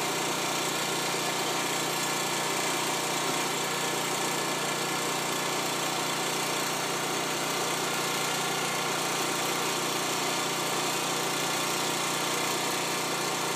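Fire truck's engine running steadily, a constant mechanical drone that neither rises nor falls.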